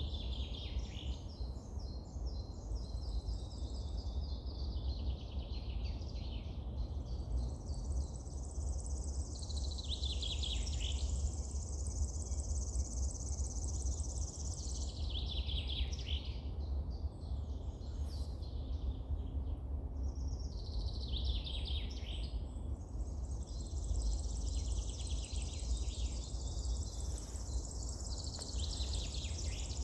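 Wild songbirds singing: one bird repeats a high, trilled phrase that falls in pitch at its end every five or six seconds, with a steady low rumble underneath.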